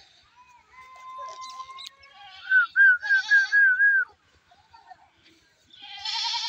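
Animal calls: a long thin cry, then a run of loud wavering calls about two seconds in, and another loud call near the end.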